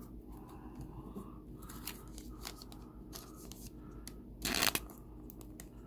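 Trading cards and a thin clear plastic card sleeve being handled: light clicks and rustles, with one louder rustle of the plastic about four and a half seconds in.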